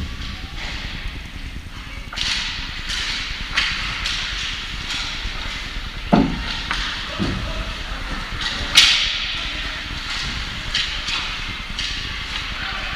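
Sounds of play at a team sports game: sharp knocks and hissing scrapes, with the loudest crack about nine seconds in, over the general noise of the rink or arena.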